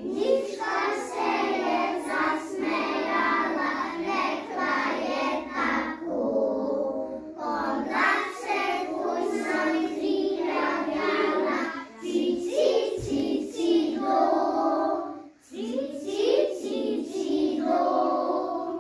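A group of young children singing a song together in unison, phrase after phrase, with short breaths between lines.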